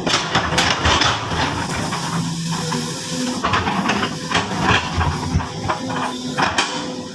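Sumitomo SH-200 hydraulic excavator working: its diesel engine runs steadily under a broad hiss, with frequent irregular knocks and clatter.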